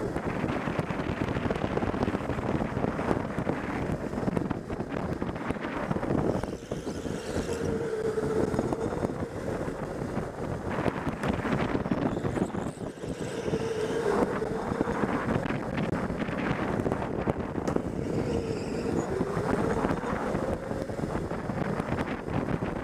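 Indoor electric go-kart at speed, heard from the kart itself: a steady rattling rumble of the chassis and tyres with wind buffeting the microphone. A faint motor whine dips and climbs back three times as the kart slows for the corners and speeds up again.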